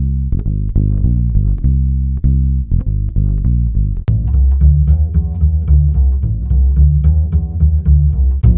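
A plucked bass playing a quick line of low notes, several a second, each note dying away fast. A sharp click comes about four seconds in, after which the notes sit lower and sound fuller.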